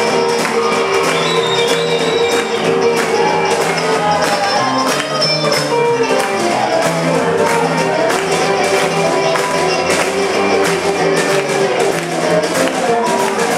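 Live rhythm-and-blues band playing loudly with a steady beat: hollow-body electric guitar, saxophones, drum kit and upright bass.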